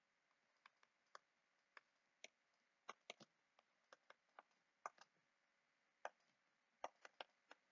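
Faint, irregular clicks of a stylus tapping on a tablet screen while equations are handwritten, about ten in all over otherwise near-silent room tone.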